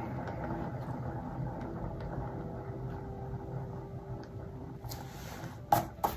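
Small electric blower, the kind used to blow blooms out in poured acrylic paint, running steadily with a faint steady hum. Two sharp clicks come near the end.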